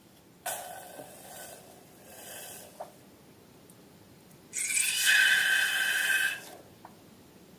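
Rubber balloon squealing twice as air is let out through its neck, a hissing squeal with a held pitch: a fainter one lasting about two seconds, then a louder one of about two seconds midway.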